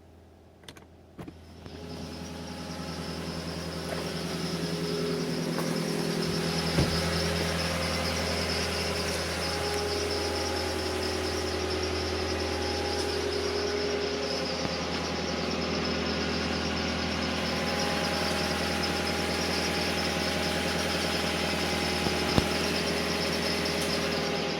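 Lexus LS460L's V8 engine running steadily, a high-pitched whistle from the accessory belt drive (the belt or its idler pulleys) above the engine hum. The sound builds up a little over a second in, and two sharp clicks stand out, one several seconds in and one near the end.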